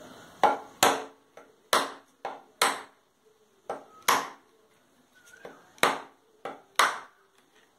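A blade hacking open a shaved tender coconut: about a dozen sharp chops, coming in uneven twos and threes.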